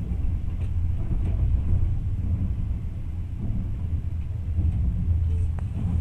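Steady low rumble of a moving passenger train heard from inside the carriage, with a few faint knocks.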